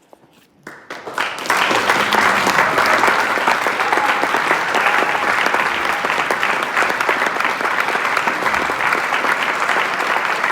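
Audience applauding: a few claps about a second in, swelling quickly into steady full applause.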